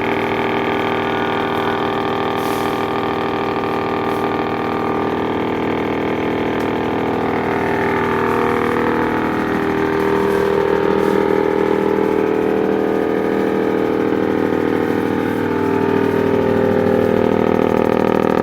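Chaff cutter running steadily, a continuous mechanical hum that gets slightly louder about ten seconds in and again near the end.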